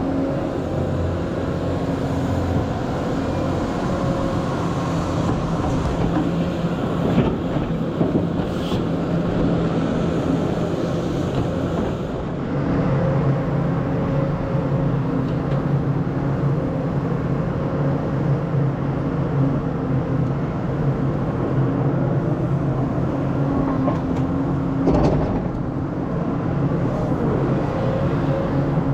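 Caterpillar 320E excavator's diesel engine running steadily while digging, its note shifting and getting a little louder about twelve seconds in. A few short knocks come through, the loudest about 25 seconds in.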